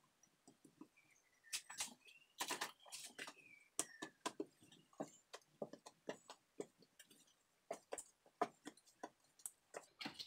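Hands kneading bread dough on a countertop: irregular soft slaps, taps and clicks as the dough is pushed and turned.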